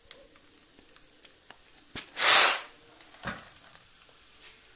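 Chana dal frying in oil in an iron kadai, a faint steady sizzle. About two seconds in comes a loud, short burst of breathy noise, and a smaller one about a second later.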